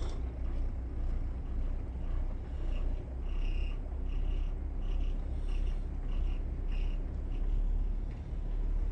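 Twin diesel engines of a 50-foot motor yacht running at idle, a deep steady rumble that swells and eases about once a second. In the middle comes a run of short high chirps, about two a second.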